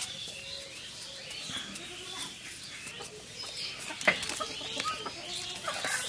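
Animal calls and bird chirps in the background, with scattered light clicks and one sharp click about four seconds in.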